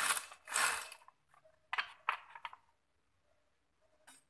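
Handling noises: brief rubs and scrapes, two at the start and two more about two seconds in, then a couple of light clicks near the end.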